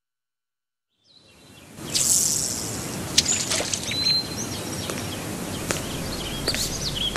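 Outdoor nature ambience fading in after about a second of silence: a steady rushing noise with birds chirping and a few sharp ticks.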